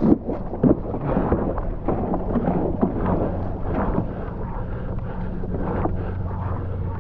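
Water splashing and slapping against the hull of a stand-up paddleboard moving through choppy water, with wind buffeting the microphone. The splashing is choppy and irregular for the first few seconds, then settles into a steadier rush.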